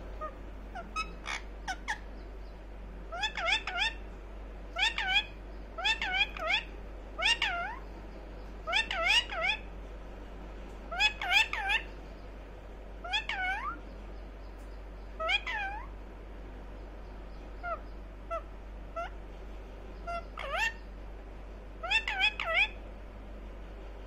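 Indian ringneck parakeet giving short, high-pitched chattering calls with swooping pitch, in bursts every one to two seconds.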